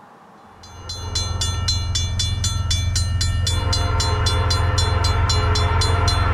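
Vintage Safetran railroad crossing bell starting to ring about half a second in, struck about four times a second with a bright metallic ring over a heavy low hum: the crossing signal warning of an approaching train. About three and a half seconds in, further steady lower tones join beneath the strikes.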